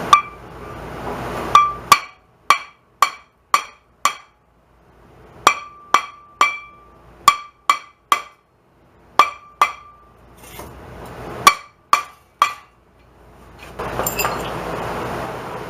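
Hammer striking steel parts of a Dana 30 front differential during teardown, about nineteen sharp metallic blows that ring briefly. They come in quick runs of three to six, roughly two blows a second, with short pauses between runs.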